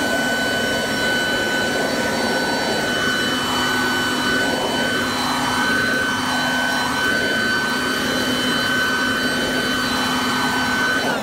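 Ryobi RBV3000CESV corded electric leaf blower-vac running in vacuum mode, sucking up dry leaves: a steady high motor whine over a rush of air. For a few seconds midway the rush rises and falls about once a second. Its poor performance is partly put down to the collection bag hanging so low.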